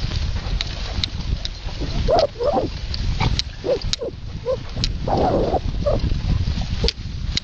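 A bulldog making a run of short grunting sounds, about eight in four seconds with one longer one, as it trots through long grass. A steady low rumble sits under it.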